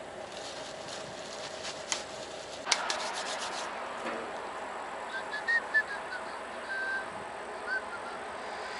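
Rubbing and scraping of something being handled, with a few clicks and a louder scrape about three seconds in, over a steady low hum.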